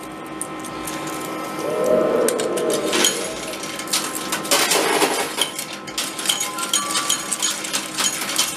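Metal coins clinking and clattering in a coin pusher arcade machine as they drop onto the moving pusher shelf and shunt against each other, over a faint steady machine hum. A short low hum comes about two seconds in, and the clinks come thicker in the last few seconds.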